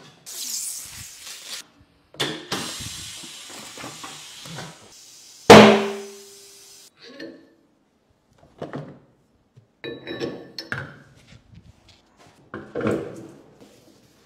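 Tyre-shop machine and tool noise. Hissing from a pneumatic tyre changer comes first, then a single loud metallic clank with a brief ringing about five and a half seconds in. After that, scattered clicks and knocks as a car wheel is fitted onto a wheel balancer's shaft.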